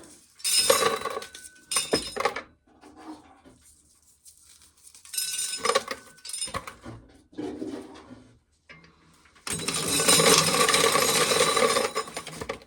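Dried corn kernels clinking and rattling as ears are shelled into a container: a few short bursts, then a steadier run of about three seconds near the end.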